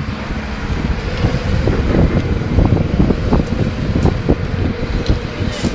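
Thermite rail weld in progress: a loud, steady rushing noise with many crackles and pops through it.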